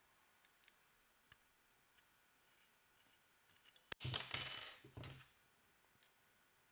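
A sharp click about four seconds in, then about a second of bright metallic clinking and ringing from a hex key and small steel screws against the rifle's gas tube. Near silence with faint ticks before and after.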